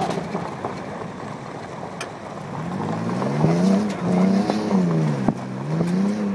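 Lifted Toyota 4Runner driving off-road over dirt, at first a rough rumble of tyres and engine. From about halfway in, the engine revs rise and fall repeatedly as the throttle is worked over the terrain.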